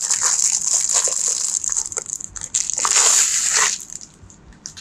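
Clear plastic shrink-wrap crinkling as it is peeled and pulled off the end of a rolled playmat's tube, with a louder burst of crackling about three seconds in before it stops.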